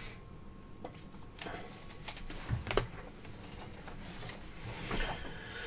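2019 Prizm baseball cards being handled and sorted by hand, with a few irregular sharp clicks of the stiff card stock over a faint rustle.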